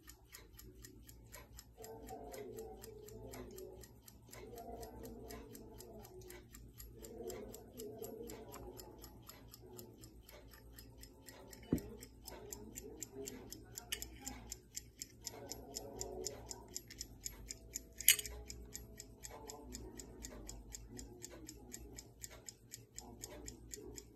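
1960 Westclox Bull's Eye pocket watch's pin-lever movement ticking in a rapid, even beat. Two sharper clicks from handling the case, one about twelve seconds in and a louder one about eighteen seconds in.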